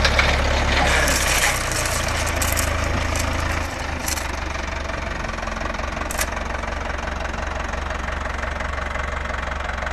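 McCormick tractor's diesel engine running, its note dropping about a second and a half in and again near four seconds, then idling steadily. Two short clicks are heard, one around four seconds and one around six.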